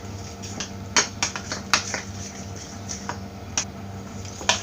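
Spoon clinking against a bowl while stirring a wet masala paste of curd and spice powders: several sharp, separate clinks at irregular intervals.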